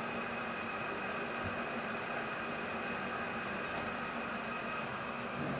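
Metal lathe running steadily, its motor and gearing giving a constant hum and whine while the spinning chuck turns a rifle barrel as the muzzle end is single-point threaded 1/2-28 for a muzzle brake.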